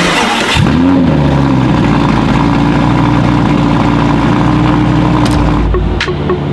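Lamborghini engine cold-started: it catches with a short rev that rises and falls about half a second in, then settles into a steady high idle.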